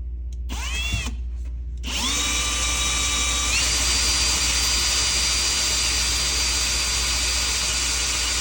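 Power drill boring into a wall: a short squeeze of the trigger that spins up and winds down about half a second in, then from about two seconds in a steady run whose whine steps up in pitch a little later.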